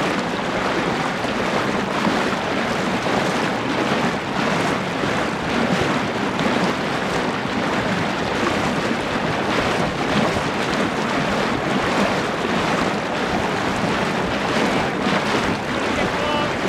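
Steady wind noise on the microphone mixed with lake water lapping and splashing, an even rushing hiss with no engine note or steady rhythm.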